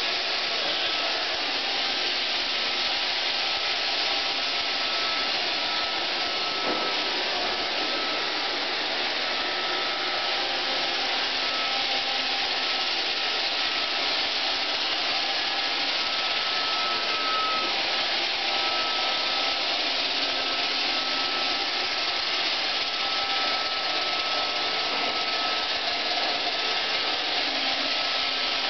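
iRobot Roomba 520 robot vacuum running while cleaning a laminate floor: a steady whirring hiss from its vacuum motor and brushes, with a thin steady whine on top.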